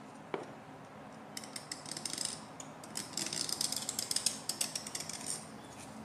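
Hobby knife blade scraping around a hole in a painted metal stand base. There is a single click about a third of a second in, then a rapid run of fine scratchy ticks from about a second and a half, busiest between three and five seconds, stopping shortly before the end.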